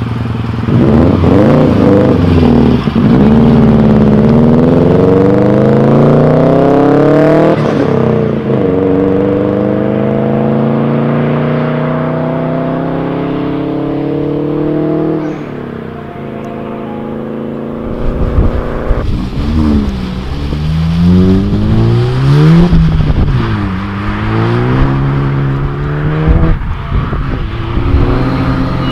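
Subaru Impreza WRX's flat-four engine accelerating hard: its pitch climbs, drops at a gear change about eight seconds in, climbs again, then fades as the car pulls away. In the second half, another car's engine revs up and down several times.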